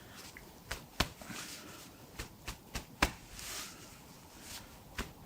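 Hands working on a patient's lower back over the sacroiliac joint: about seven sharp, irregular clicks and taps, the loudest about a second and three seconds in, over soft rubbing of hands on skin and cloth.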